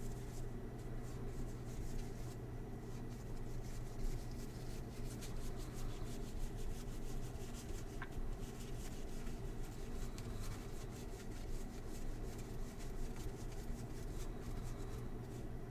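Trading cards being handled and slid against one another, a soft rustling with many light ticks, over a steady low hum.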